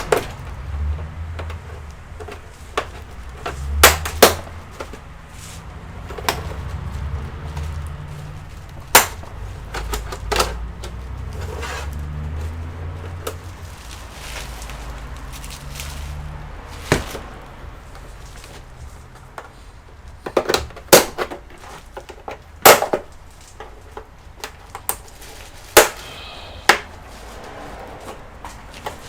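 Irregular sharp clicks and knocks from hands and tools working on a computer's casing and parts during disassembly, over a low handling rumble in the first half.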